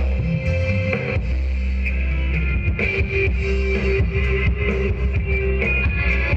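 Rock music with guitar and drums playing, with a held note in the middle.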